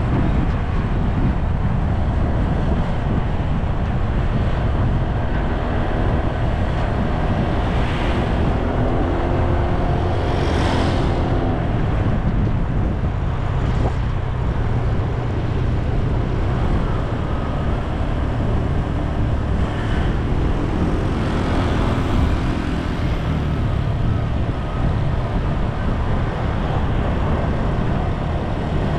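Steady wind rumble on the microphone over a vehicle engine running at cruising speed on a road ride. A few brief swells of rushing noise come about eight, ten and twenty seconds in.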